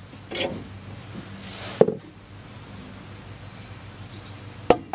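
Scraping and rustling of a rusty steering-linkage part being handled under the van, with a sharp click about two seconds in and another near the end, over a steady low hum.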